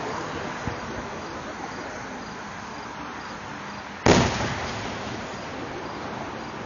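Fireworks show: one loud aerial shell burst about four seconds in, its boom rumbling away over about a second, with a few faint pops earlier, over a steady outdoor hiss.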